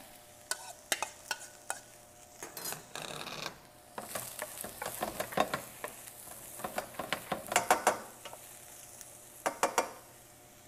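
Diced squash and eggplant sautéing in hot oil in a stainless steel pan, stirred with a wooden spatula: scattered knocks and scrapes of the spatula, a sizzle that grows about four seconds in, and quick bursts of stirring strokes near the end.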